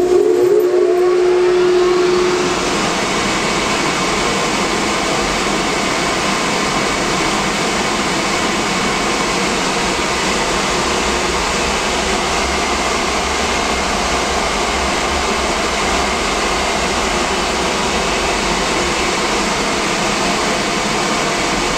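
A 10 HP three-phase Lincoln electric motor spinning up a Spencer Orgoblo steel organ blower. A hum and faint rising whine over the first couple of seconds as it comes up to speed, then a steady rush of air with the blower running at full speed.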